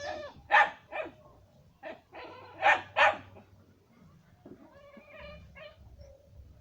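A dog barking: two pairs of loud, short barks about two seconds apart, followed by fainter, softer calls.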